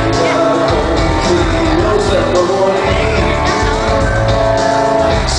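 Live pop-rock band playing through the PA at a sound check: drums keeping a steady beat under guitars and a melody line.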